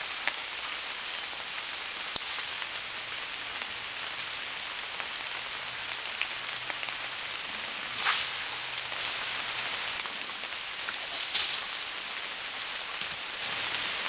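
Steady outdoor hiss with a few sharp twig snaps and two louder rustling crackles, about eight and eleven seconds in, as a black Labrador chews and tugs at a sapling.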